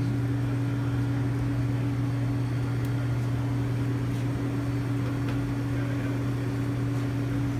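Commercial kitchen exhaust hood fan running with a steady low hum, joined by a few faint clicks.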